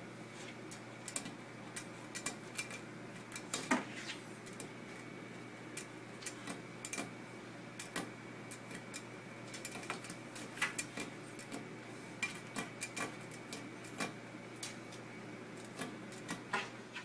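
Irregular sharp clicks and light taps, several a second at times, over a steady low hum.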